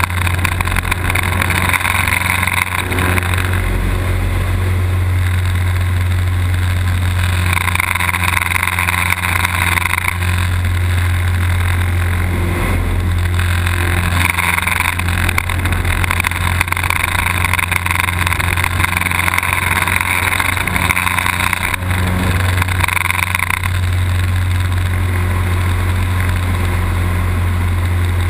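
Light aerobatic plane's propeller engine heard from inside the cockpit, a loud steady drone whose sound swells and eases several times.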